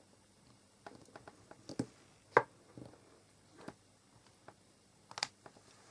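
Scattered light taps and clicks of card pieces being handled on a desk, with one sharper knock about two and a half seconds in.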